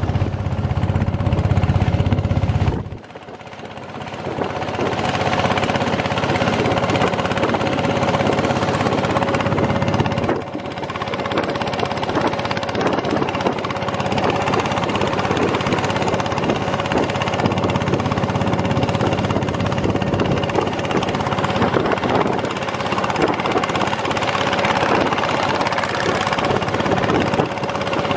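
Long-tail boat engine running at speed with a fast, pounding beat and a steady hum. It drops off abruptly about three seconds in, then builds back up over the next two seconds.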